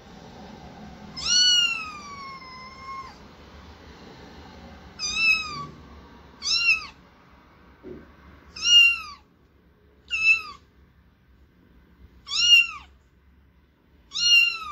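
A calico kitten meowing repeatedly: seven high-pitched meows, each falling in pitch at the end. The first, about a second in, is long and drawn out; the rest are short and come every second or two.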